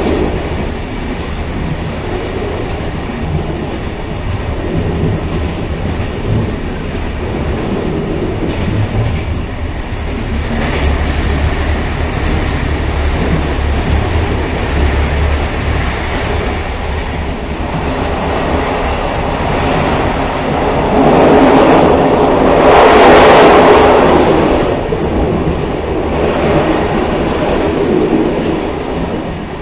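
Railcar running along the track with a steady rumble of wheels on rail. It grows louder for a few seconds about three-quarters of the way through, then settles back.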